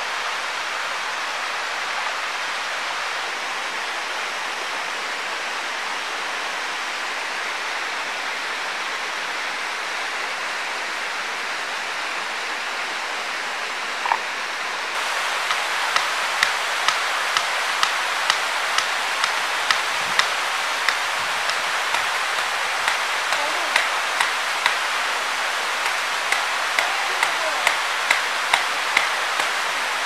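Steady rush of a forest stream and waterfall. About halfway through it grows louder, and a regular run of sharp knocks joins it, about two a second.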